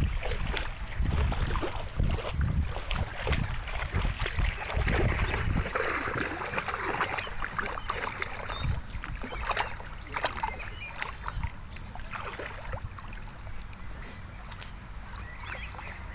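A dog wading through a shallow creek, water splashing and sloshing irregularly around its legs, with a low wind rumble on the microphone for about the first six seconds.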